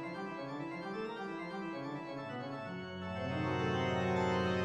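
Organ music: a moving line of notes, then a loud held chord from about three seconds in.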